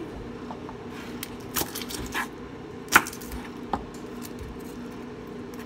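A few short clicks and knocks of a knife and garlic cloves against a plastic cutting board as garlic is broken up and peeled, the sharpest about three seconds in, over a steady low hum.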